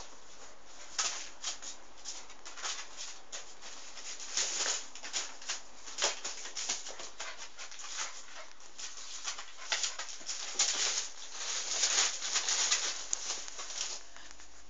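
A puppy squirming and rolling about on the carpet in a dog coat it doesn't like: irregular rustling and scuffing of the coat fabric and paws against the floor, starting about a second in and busiest near the end.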